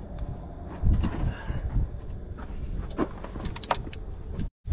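Scattered metal clinks and knocks of tools and bolted brackets being handled while bulldozer parts are taken apart, over a low steady rumble; the sound breaks off abruptly near the end.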